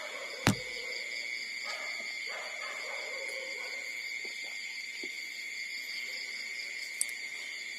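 Puppies giving a few short, low whimpering cries in the first few seconds over a steady high insect drone, with a sharp click about half a second in and a fainter one near the end.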